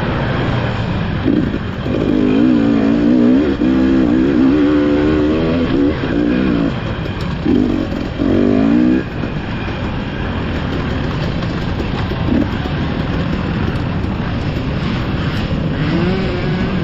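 Dirt bike engine heard from the rider's on-board camera, revving up and falling back repeatedly through the first nine seconds or so, then running lower and steadier.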